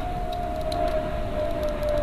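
A single steady tone slowly falling in pitch over a steady hiss, with a scatter of faint light clicks that fit a wood pigeon pecking seed from a plastic feeder tray.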